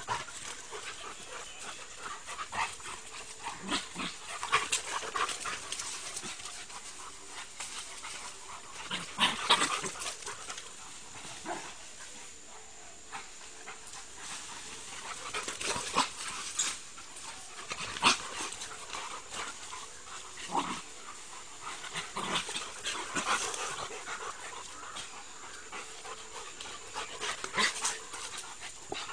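Dogs playing together, with irregular short bursts of noise and sharp clicks, some louder than others.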